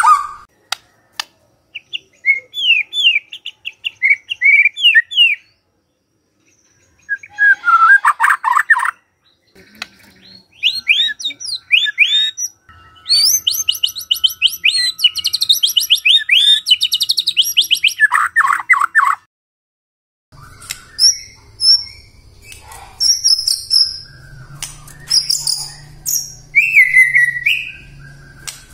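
White-rumped shama singing in bursts: runs of quick sliding whistles and dense, rapid rattling trills, broken by short silences. This is an excited full song of the kind played to provoke other shamas into answering.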